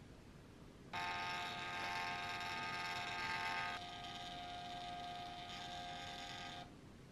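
Small portable thermal label printer printing and feeding out a label: its motor starts about a second in with a steady whirring whine, runs louder for nearly three seconds, then drops to a quieter whir for about three more before stopping abruptly.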